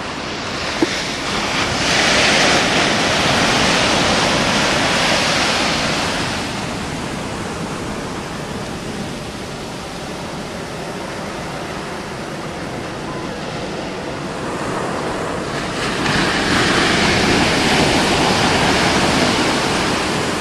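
Ocean shorebreak waves crashing and washing up the beach in a continuous rush of surf. It swells louder twice, once about two seconds in and again near the end, as bigger waves break.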